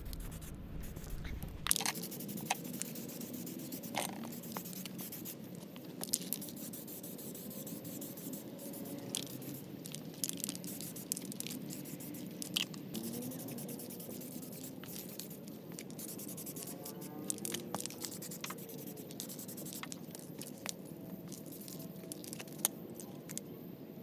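Aerosol spray-paint can spraying, with scattered sharp clicks and taps throughout.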